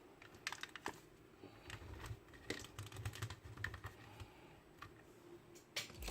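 Scattered light clicks and taps at an irregular pace, like small hard objects being handled or keys pressed, with a faint low rumble in the middle.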